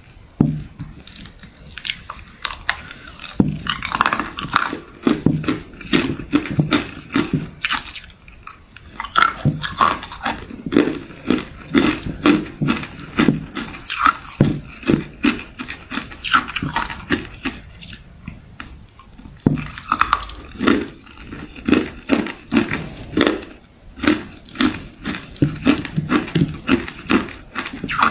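Hard clear ice cubes being bitten and crunched in the mouth, close to the microphone: rapid sharp cracks and crunches in runs of several seconds, broken by a few short pauses.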